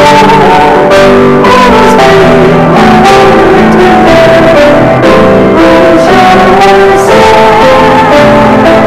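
A small group singing a hymn with piano accompaniment, sustained sung notes over a steady keyboard rhythm.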